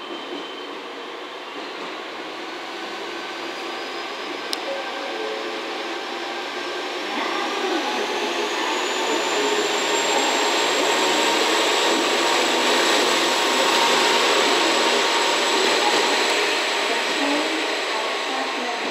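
Single-car KiHa 40 series diesel railcar running through the station, its engine noise growing louder about a third of the way in, with a high whine that rises in pitch and then holds steady, easing slightly near the end.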